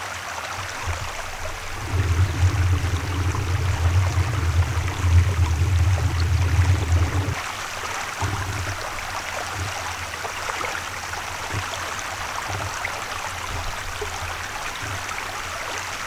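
Steady rushing of flowing open water, with a low rumble from about two to seven seconds in.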